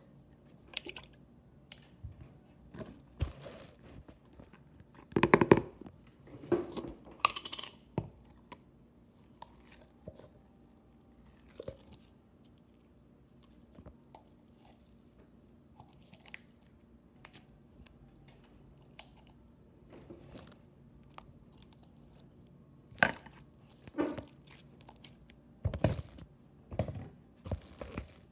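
Slime being played with by hand: irregular sticky crackles, pops and clicks as fingers press and pull it. They come in clusters a few seconds long, with quiet gaps between.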